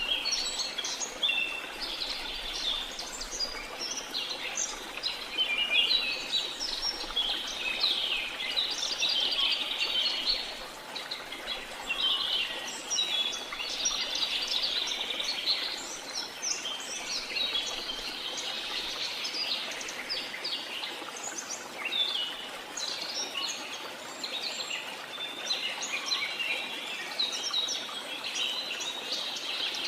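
Jungle ambience: many birds chirping and trilling in a dense, overlapping chorus, over a steady hiss of falling water.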